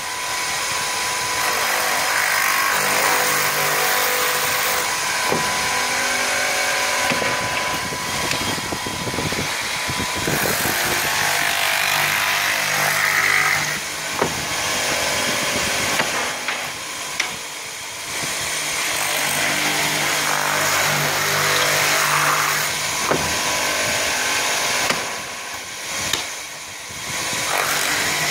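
Multi-spindle drilling machine for chair-leg joints running, its spindle motors whining steadily while the bits bore dowel holes into the wooden parts, with a few clicks. The noise eases off briefly a few times between drilling cycles.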